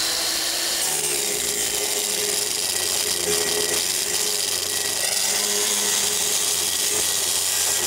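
Electric angle grinder running steadily with its disc pressed against rusted sheet steel, a continuous rough grinding noise over the motor's steady whine.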